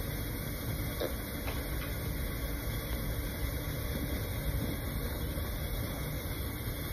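Steady low rumbling background noise with no speech, like a running vehicle or machine, even throughout.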